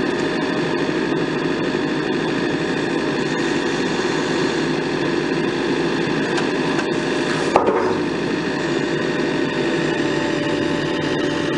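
JCB 3CX backhoe excavator's diesel engine running steadily under hydraulic work, with a single sharp knock about two-thirds of the way through.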